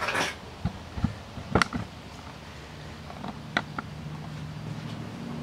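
A few sharp clicks and knocks of equipment being handled, the loudest about a second and a half in and two more near the end, while a low steady hum sets in about halfway and slowly grows louder.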